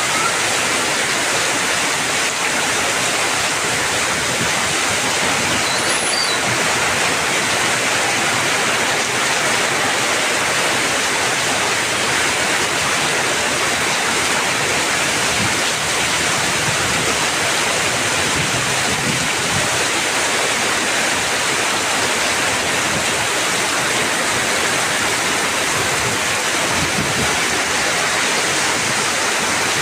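Heavy rain falling steadily, an even hiss of water that does not let up.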